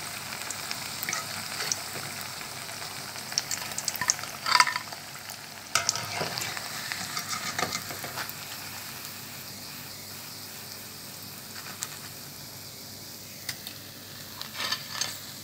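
Cutlets sizzling as they deep-fry in hot oil, with a wire skimmer clicking and scraping against the metal pot as they are scooped out, mostly between about three and eight seconds in. The sizzle is quieter in the second half.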